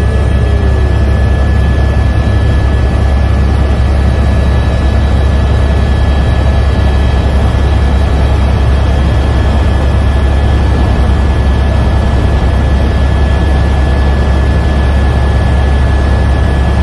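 Helicopter in flight heard from on board: a loud, steady drone of rotor and turbine, with a thin steady whine high above it.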